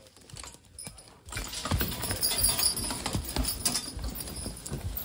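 A draft horse walking with a two-wheeled log cart: hooves thudding on the forest floor, with metal jingling from the harness and cart. The sounds start suddenly about a second in, after a quieter stretch with a few faint thumps.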